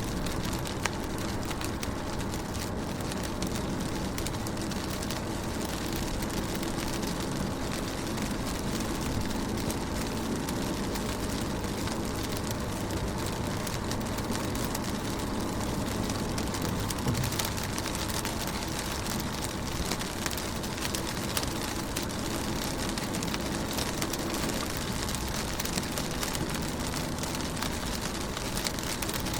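Raindrops pattering steadily on a car window: many small ticks over an even hiss, with a steady low hum underneath.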